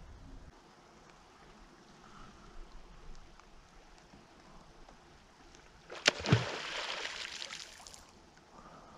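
Faint lapping water around a kayak, broken about six seconds in by a sharp knock and a splash that hisses on for about two seconds.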